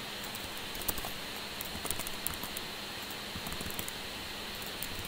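Typing on a computer keyboard: irregular quick keystrokes over a steady background hiss, as values are entered into form fields.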